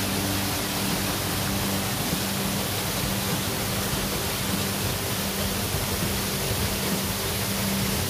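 Waterfall pouring down a rock chute into a plunge pool: a steady, even rush of falling water.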